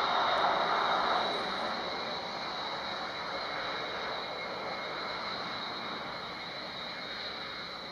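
Jet aircraft engines running: a steady rush of noise with a thin, high whine, loudest at the start and slowly fading.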